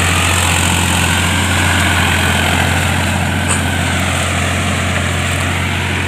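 Tractor engine running steadily at a constant speed, a low even hum with no revving.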